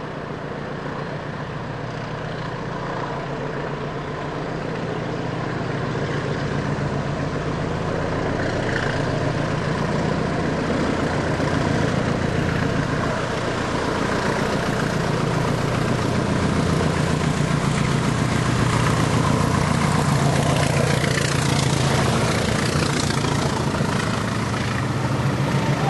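A pair of Class 20 diesel locomotives, each with an English Electric eight-cylinder engine, working hard up a bank. They grow steadily louder as they approach and pass, with the coaches they haul following behind.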